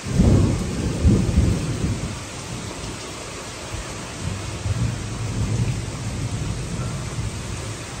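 Heavy rain pouring in a thunderstorm with strong wind. A loud low rumble surges twice in the first two seconds, then eases into a softer low rumble under the steady hiss of the rain.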